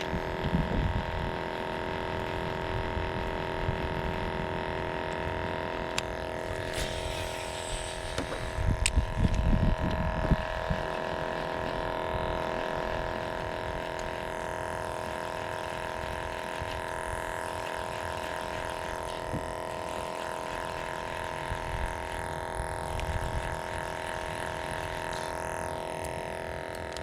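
A boat motor running at a steady pitch, with gusts of wind buffeting the microphone about ten seconds in.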